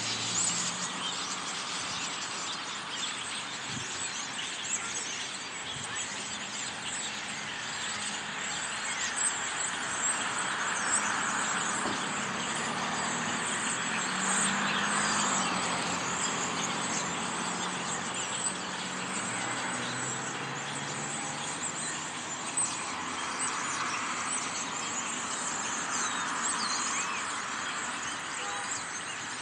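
A large flock of songbirds perched in trees calling all at once, a dense unbroken din of many overlapping short calls. Road traffic hums underneath, swelling as vehicles pass, most noticeably around the middle and again about two-thirds of the way in.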